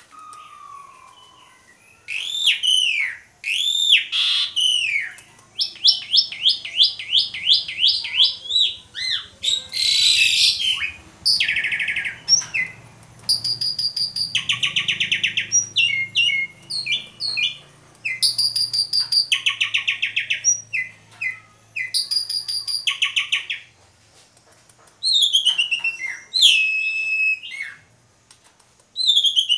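A pied starling (jalak suren) singing its loud, varied song: arched whistled notes, fast runs of repeated notes and harsh, buzzy rattles, with a short pause near the end before a few falling whistles.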